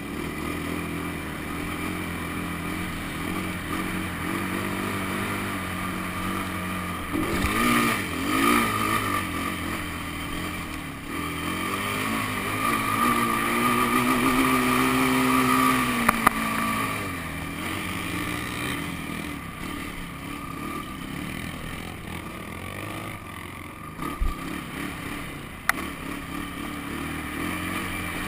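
Quad (ATV) engine running while riding over sand, revving up and rising in pitch under load as it climbs a dune about halfway through, then easing off. A few sharp knocks are heard later on.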